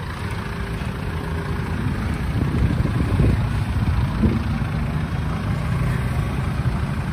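An engine running steadily with a low rumble that swells slightly about three seconds in.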